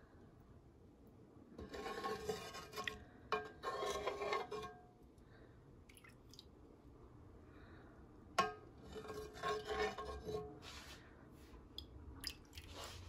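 Metal ladle scraping along the inside and rim of a metal roasting pot while chili oil is skimmed off birria consommé, in several strokes of about a second each, with a sharp clink of ladle against pot about two-thirds of the way through.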